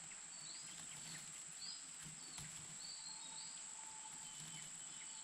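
Faint outdoor ambience: short, high bird chirps at irregular intervals over a steady high-pitched whine.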